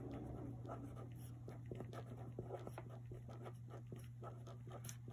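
Marker writing on a paper workbook page: faint, irregular strokes and taps throughout, over a steady low hum.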